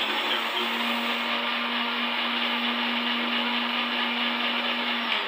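Electric blender or grinder running steadily at full speed, grinding mint chutney, with a constant motor hum under the churning. It switches off near the end and winds down.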